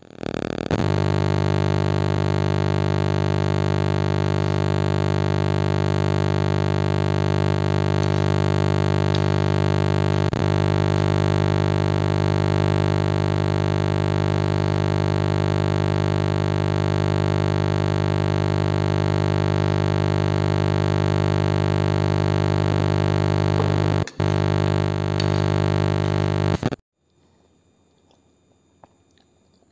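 Loud sustained synthesizer drone: one held chord with no beat or melody, briefly dropping out once near the end before it cuts off suddenly, leaving near silence.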